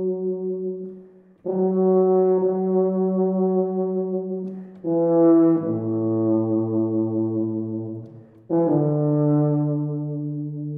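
Solo tuba playing slow, long held notes with short breaks between them. One note steps down to a lower pitch partway through, and the last note slowly fades.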